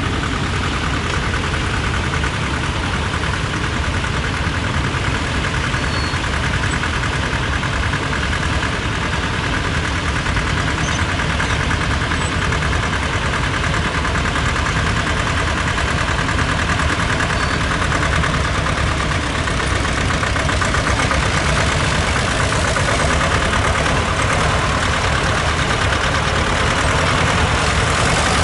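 T-25 tractor's two-cylinder air-cooled diesel engine running steadily under load as it pulls a plough through the soil, getting a little louder near the end as it comes close.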